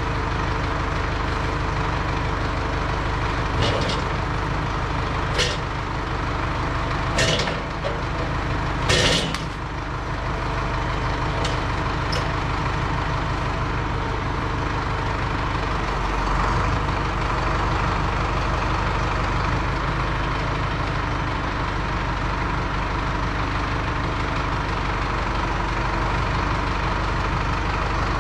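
Tractor engine running steadily while its loader handles a log, with several sharp clunks in the first dozen seconds as the log is set onto the portable sawmill's steel bed, the loudest about nine seconds in.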